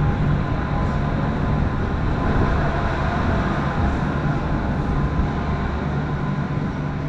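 Steady mechanical rumble with a constant low hum, from the cable car station's machinery.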